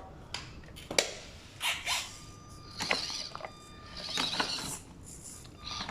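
Axial SCX24 Deadbolt micro crawler's small electric motor and gears whining as it creeps over the track, with scattered clicks and scrapes from the tyres and chassis on the surface. A thin, steady high whine sounds from about two seconds in to about four seconds in.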